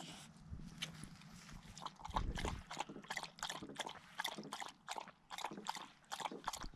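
A dog lapping water from the dish of a gravity-fed pet waterer, in quick even laps about three a second.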